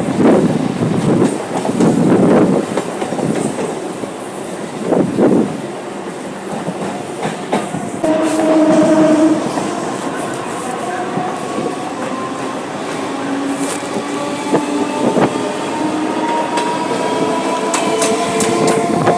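Indian suburban electric local trains passing close by: wheels clatter over the rail joints in a heavy rhythm for the first few seconds. About eight seconds in a short steady horn sounds. Then an electric motor whine rises slowly in pitch as a train gathers speed.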